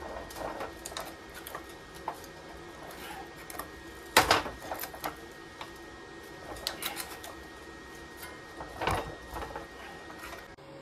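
A hand-lever arbor press driving shrinker-stretcher jaws on a strip of sheet metal: scattered metal clicks and clanks as the handle is worked and the jaws grip, with two louder knocks about four seconds in and near nine seconds.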